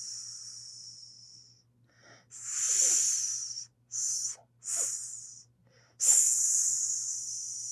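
Snake hissing in a series of separate hisses: one fading out at the start, then a longer hiss, two short ones, and a loud hiss that starts sharply near the end and slowly fades.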